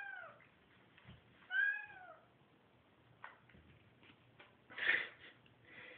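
Domestic cat meowing twice, each meow rising then falling in pitch, about a second and a half apart, followed by a shorter, rougher sound about five seconds in.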